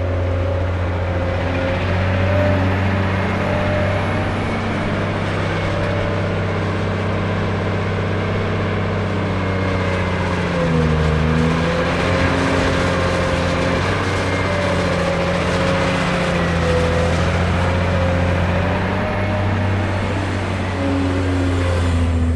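Cat 385C hydraulic excavator's diesel engine running steadily at work. Its pitch dips and recovers about halfway through and again a little later.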